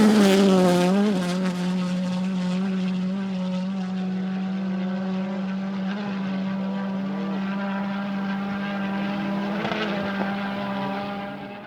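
Rally car engine revving briefly, then holding a steady high engine note for several seconds before fading out near the end.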